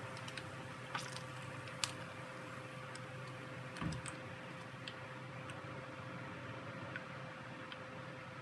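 Cooking oil sizzling in a frying pan around sausage-and-bread rolls, with scattered sharp clicks and taps as the pieces are lifted out with a spatula onto a wire skimmer. A faint steady hum runs underneath.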